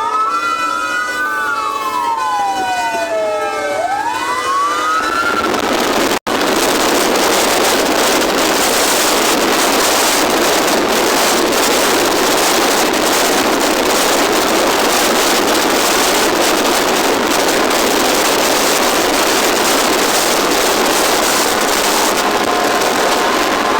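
Fire engine siren wailing, its pitch sweeping up and down, over steady horn tones. After about five seconds it gives way to a loud, steady rushing noise, and the siren tones come back faintly near the end.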